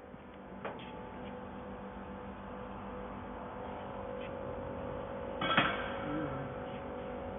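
Welding machine humming steadily with no weld running, a steady tone in the hum from about four seconds in. There is a light click near the start and a louder knock about five and a half seconds in.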